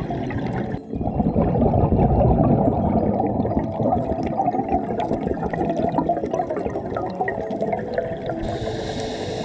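Underwater sound picked up by the camera during a scuba dive: a scuba diver's exhaled bubbles rumble and gurgle, loudest in the first few seconds. A steady high hiss, like a regulator breath, comes in near the end.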